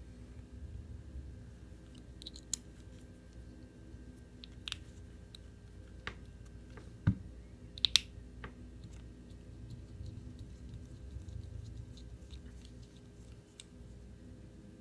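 Faint, scattered small clicks and taps of metal parts as a Medeco M3 lock is handled and taken apart by hand, with a dull knock about seven seconds in and a pair of sharper clicks just after it.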